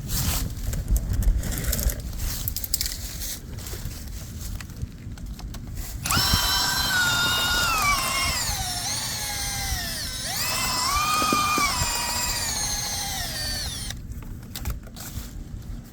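Power drill spinning a rotary dryer vent cleaning brush: the motor whine starts about six seconds in, slides down and back up in pitch as the speed changes under load, and stops about two seconds before the end. Before it there is a low rumble with scattered knocks.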